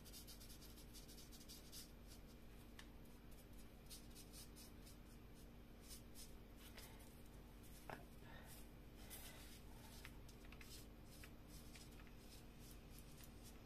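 Faint, quick scratching strokes of a felt-tip marker colouring in on paper, many short strokes in an uneven rhythm, over a low steady hum. A soft tap about eight seconds in.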